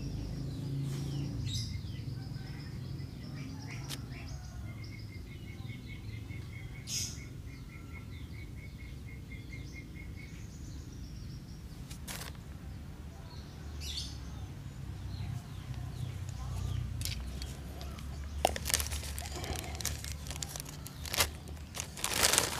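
A bird calling in the background: a few high chirps in the first seconds, then a quick run of evenly spaced notes for about six seconds, over a steady low rumble. Near the end come a few sharp clicks and rustles of hands handling the wired bonsai and its plastic grow bag.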